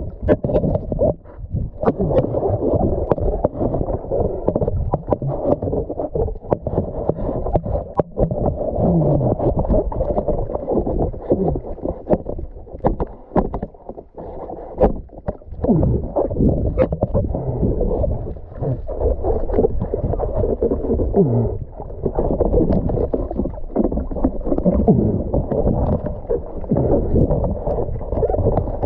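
Muffled underwater rushing and sloshing of water as a diver swims, with scattered sharp clicks and knocks.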